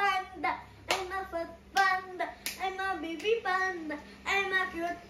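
A young girl singing, with three sharp hand claps between phrases in the first half.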